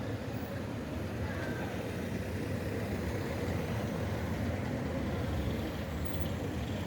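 A car engine running steadily with a deep, even rumble.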